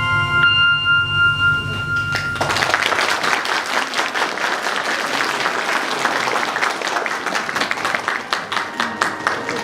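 Music of held, bell-like tones over a low bass stops about two and a half seconds in, and an audience breaks into applause, clapping steadily for the rest.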